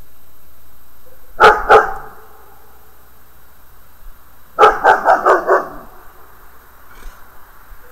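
A dog barking: two barks about a second and a half in, then a quick run of about five barks near the middle.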